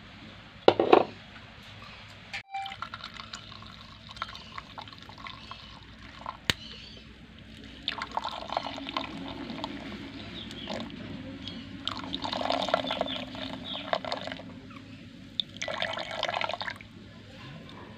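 Freshly squeezed coconut milk pouring in a thin stream from a wrung cotton cloth into a glass bowl of frothy milk. The splashing swells in several spells as the cloth is squeezed, after a brief loud noise about a second in.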